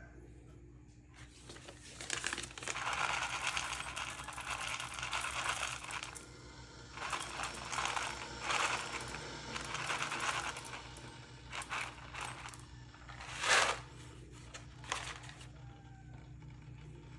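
A paper coffee bag rustling and crinkling as it is handled and opened, in two long stretches. It is then tipped over a small ceramic cup so that roasted coffee beans fall in, with a few short, sharp rattles near the end.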